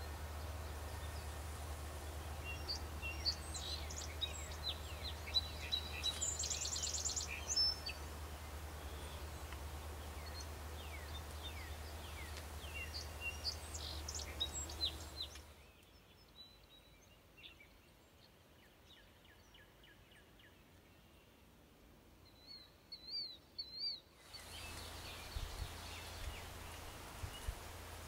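Songbirds chirping and singing, with many short calls and quick rising and falling notes, over a steady low hum. About halfway through the hum stops for several seconds and the bird song is fainter, with a quick warbling phrase, before the hum returns near the end.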